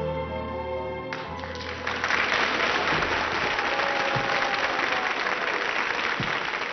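The song's final held chord rings out and dies away while an audience breaks into applause about a second in. The applause grows louder a second later and carries on steadily.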